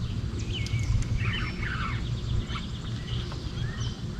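Birds chirping, a mix of short chirps and brief curved calls, over a steady low rumble.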